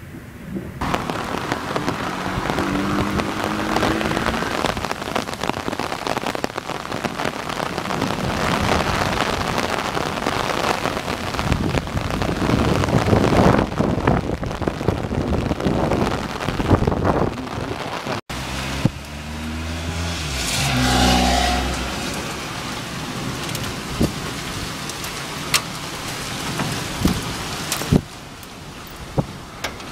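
Heavy thunderstorm: a steady, loud downpour of rain with thunder. About two-thirds of the way in the sound breaks off abruptly, then a deep rumble of thunder swells and fades, followed by a few sharp taps near the end.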